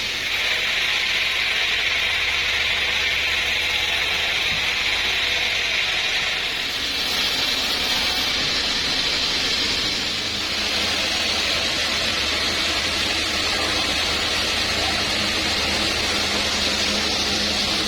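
Sawmill saw cutting through a trembesi (rain tree) log: a steady hiss of the blade in the wood over the low hum of the mill's motor.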